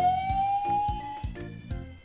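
A police-car wail siren, its pitch rising steadily, then cutting off a little past a second in. It sounds over background music with a steady beat.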